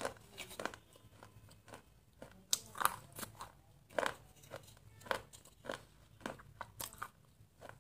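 Close-up crunching and chewing of a water-soaked brittle stick: an irregular string of sharp crunches, a few every second.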